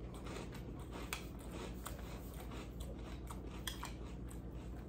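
A person eating Cap'n Crunch Halloween Crunch cereal in milk: faint crunching as it is chewed, with occasional light clicks of a metal spoon against the bowl.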